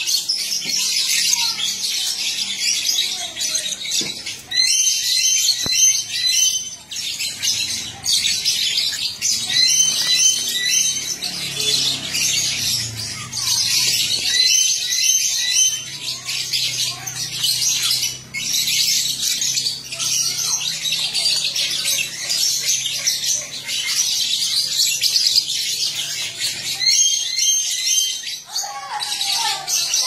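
A flock of caged Fischer's lovebirds chattering: a dense, continuous mass of shrill, high chirps and squeaks, broken now and then by short runs of quick repeated notes.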